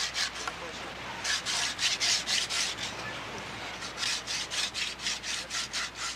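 Coconut husk fibres being rubbed into senet strands or cord: quick, even, rasping strokes, about four a second, with a couple of short breaks.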